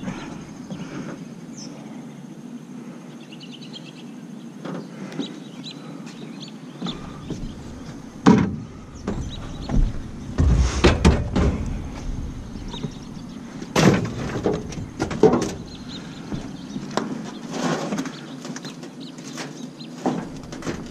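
Scattered clunks and knocks of a scrap clothes dryer being shifted and loaded, several close together in the middle and a few more near the end, with quieter stretches between.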